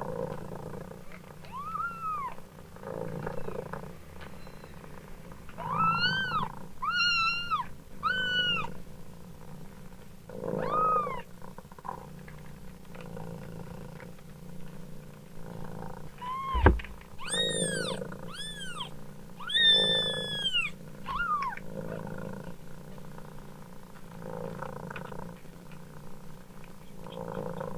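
A mother cat purring steadily while a kitten mews over it, about ten thin, high-pitched mews in small clusters, one held longer than the rest. A single sharp knock comes about two-thirds of the way through.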